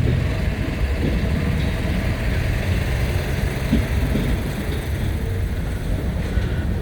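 CSX freight train of hopper cars rolling past close by: a steady, heavy low rumble of wheels and cars on the rails.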